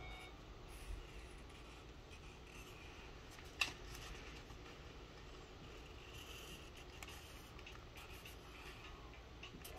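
Faint scratching of a marker drawing lines on sketchbook paper, with a single sharp click about three and a half seconds in.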